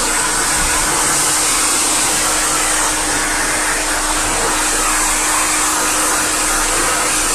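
Dog-wash blower dryer blowing air through its ribbed hose onto a wet dog's coat: a loud, steady whoosh of air with a constant motor hum underneath.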